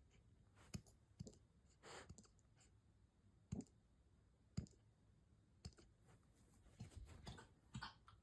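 Hiccups: a series of soft, sharp clicks, about eight of them, roughly a second apart and a little irregular.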